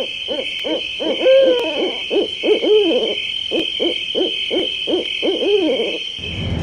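A quick run of hooting calls, about three a second, each rising and falling in pitch, a few held longer, stopping about six seconds in. A steady high-pitched hum runs underneath.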